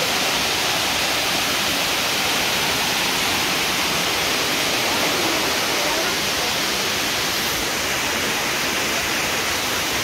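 Spring water cascading over stone steps and rushing down a stone channel: a steady, unbroken rush of water.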